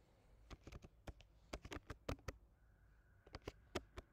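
Typing on a computer keyboard, a quiet run of quick key clicks. A pause of about a second comes a little past two seconds in, then the typing resumes.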